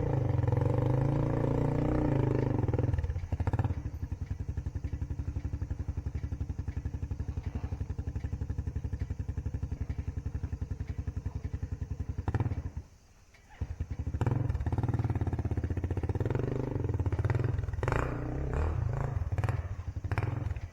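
Enduro dirt bike engine running: revving loudly at first, then settling to a lower, steady putter. It drops out for about a second roughly halfway through, then comes back.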